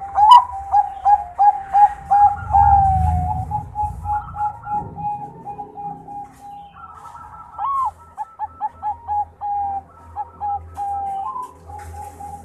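Zebra dove of the Thai-bred 'perkutut Bangkok' line singing: a long run of short, quick cooing notes, about three a second, easing off briefly midway before picking up again.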